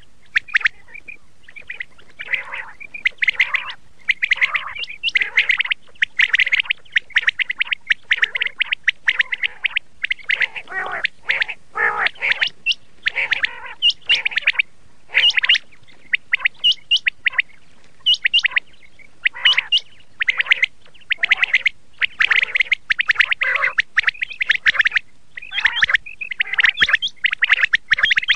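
Common quail calling: clusters of short, sharp, high-pitched notes repeated over and over with brief gaps between them.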